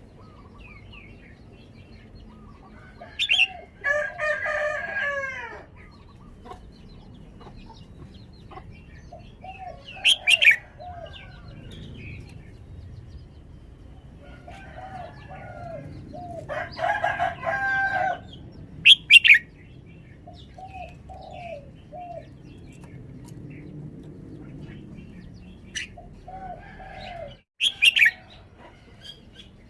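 Red-whiskered bulbul singing short, sharp whistled phrases at intervals, four loud ones in all, with a rooster crowing twice, each crow about a second and a half long.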